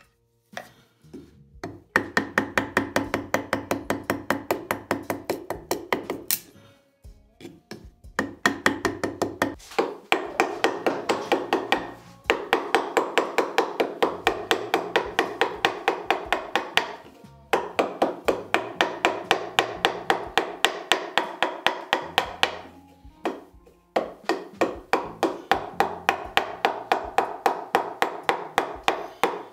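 Wooden mallet tapping a chisel into a glued-up wooden corbel, rapid even blows of about three to four a second, each with a short ring. The blows come in five runs of several seconds, broken by brief pauses.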